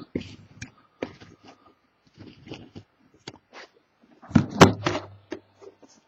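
Sealed trading-card hobby box being handled and turned over: scattered light rustles and taps, with a louder rustle and a sharp knock about four and a half seconds in.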